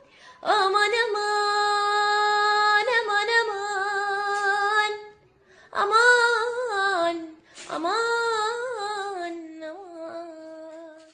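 A woman singing an Arabic song unaccompanied. She holds one long steady note for about four seconds, then sings two shorter, ornamented phrases that trail off quieter near the end.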